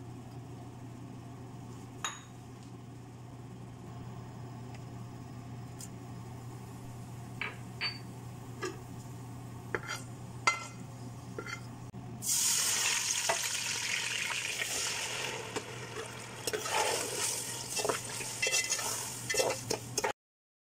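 Liquid sizzling and spattering in a hot metal pot as sugar syrup is started in the cooking oil, with a metal skimmer clinking and scraping against the pot. It begins suddenly about twelve seconds in and stops abruptly near the end. Before it there is only a low steady hum with a few light clinks.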